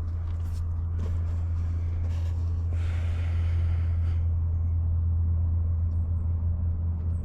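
Truck engine idling with a steady low drone. A short hiss of noise rises over it about three seconds in.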